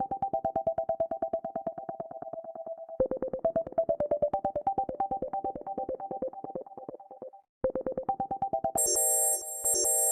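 Android 5.1 phone ringtones: a synthesized melody of quick, evenly repeated notes plays until about seven and a half seconds in. After a brief break a different, brighter electronic ringtone begins near the end.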